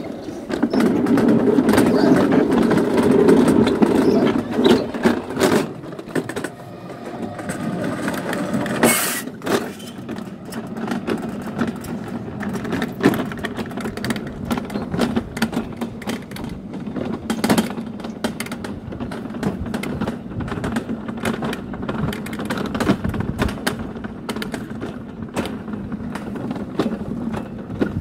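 Summer toboggan sliding down a stainless-steel trough track: a steady rumble, loudest in the first few seconds, broken by frequent clacks and knocks, with a sharp knock about nine seconds in.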